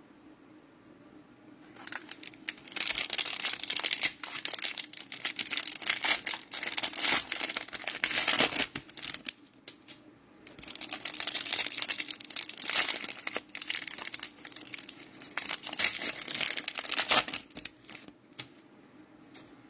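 Cellophane wrappers of Mosaic football cello packs crinkling and tearing as the packs are ripped open, in two long spells of about seven seconds each with a short pause between them.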